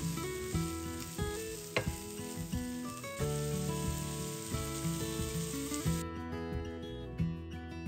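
Food sizzling in hot oil in a frying pan, with one sharp tap about two seconds in, over acoustic guitar music. The sizzle cuts off suddenly about six seconds in, leaving only the guitar.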